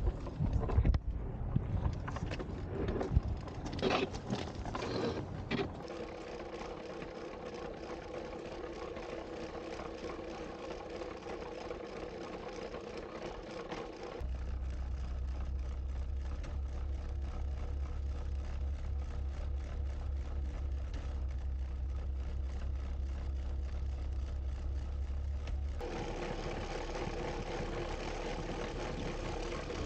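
Prototype battery-electric rail cart riding along old rails: a steady hum from its electric drive with a fast ticking rattle of the wheels on the track. There is wind noise and clicking at first, and the sound changes abruptly a few times.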